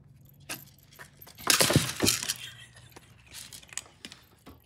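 A kitten crashing into its food dish and a raised feeder with clear bowls: a loud clatter of dish and bowls knocking about on a tile floor, with kibble scattering, about one and a half seconds in. A few smaller clinks follow.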